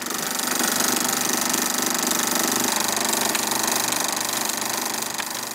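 Theatrical film projector running: a steady, fast mechanical clatter.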